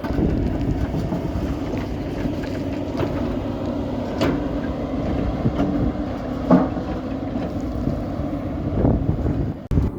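Excavator's diesel engine running steadily, with a few sharp metallic clanks about four seconds in and again a couple of seconds later; the sound dips out briefly near the end.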